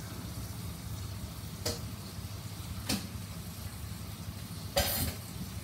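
A lidded pot of rice cooking on a lit gas stove burner: a steady low rumble, with two sharp clicks and a short, louder clatter near the end.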